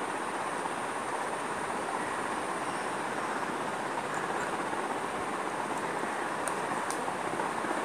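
Steady rushing background noise with a faint high-pitched whine over it, and two faint ticks near the end.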